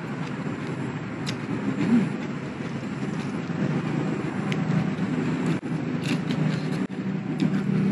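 Steady low outdoor rumble, with a few faint clicks scattered through it.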